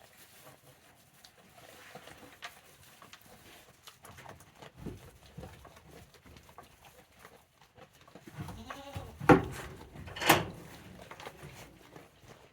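A goat bleats once, a single call that rises and falls in pitch about eight seconds in. Right after it come two sharp knocks about a second apart, the loudest sounds, with faint scattered taps and knocks elsewhere.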